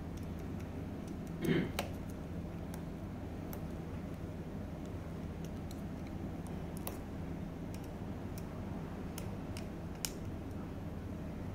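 Light scattered clicks and taps of an Allen key and an aluminium brake lever being handled and adjusted, over a steady low hum. One brief louder rustle about one and a half seconds in.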